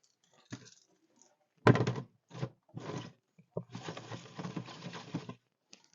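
Handling noise: a few sharp knocks and clatters, then a longer rustling scrape, as containers and objects are moved about.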